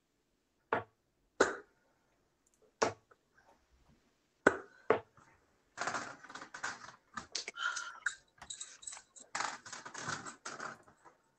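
Computer keyboard being typed on: a handful of separate key or mouse clicks, then about five seconds of rapid typing.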